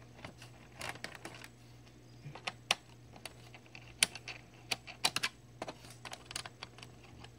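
Scattered sharp clicks and taps of hands working on a laptop's plastic case and parts, coming at an irregular pace over a faint steady hum.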